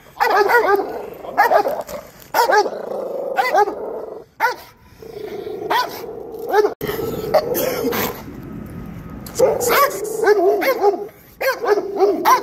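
Dogs barking at each other in repeated bursts of a few barks at a time, agitated barking between two leashed dogs squaring off.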